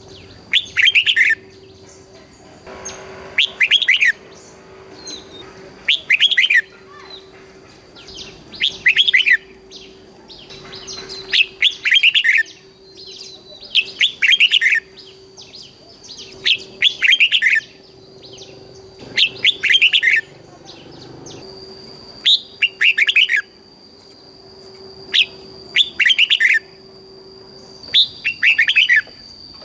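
Red-whiskered bulbul singing, repeating a short warbling song phrase about every two and a half seconds.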